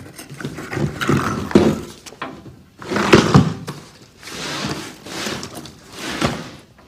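A run of thunks and scrapes from a loose section of bathroom subfloor being handled and shifted, the loudest thunk about three seconds in.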